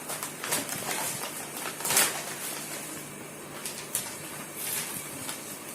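Rustling and clicking of packaging being handled as a badminton racket set is taken out of its box, with a sharper knock about two seconds in.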